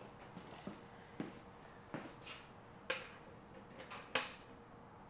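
Faint, irregular metallic clicks and taps, about one every second or so, the sharpest a little after four seconds in, as an LS1 engine is turned over slowly by hand.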